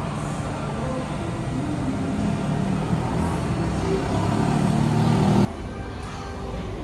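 Baldwin 4-4-0 steam locomotive running, growing steadily louder. The sound cuts off abruptly about five and a half seconds in, leaving a quieter rumble.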